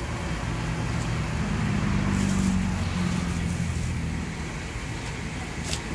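Traffic noise: a motor vehicle's engine rumble and hum that grows louder about two seconds in and then fades, like a vehicle passing close by. A single sharp knock near the end.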